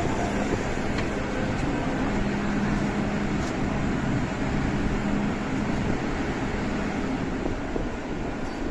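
Steady rumble and hum of an underground metro station platform, with a low drone that stops about six seconds in.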